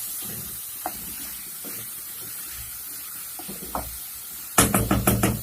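Meat and peas frying in a pot with a steady sizzle while a spoon stirs them, with a few light clinks. Near the end, a quick run of about seven loud knocks as the spoon strikes the pot.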